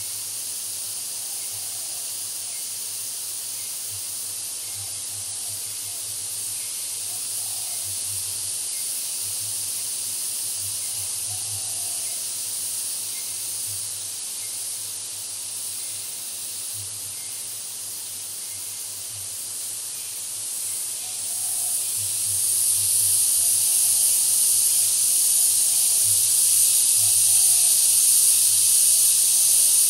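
Forest insect chorus: a steady high-pitched hiss that grows louder about two-thirds of the way through.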